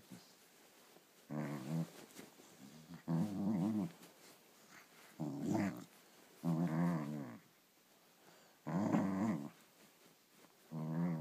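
Small dog growling in six separate bursts of about a second each, the pitch wavering, as it plays at a hand hidden under a blanket.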